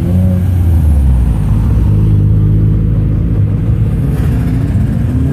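A car driving past close by with a loud, low exhaust note. The engine pitch climbs near the end as it accelerates away.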